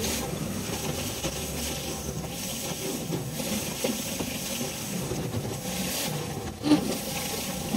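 Pressure washer's rotary surface cleaner running over wet paving slabs: a steady rushing hiss of spinning water jets over the drone of the washer's motor. A short knock about two-thirds of the way through is the loudest moment.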